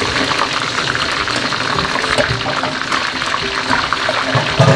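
A pot of soto broth bubbling at a steady boil, with a metal ladle stirring through it and small clicks against the pot.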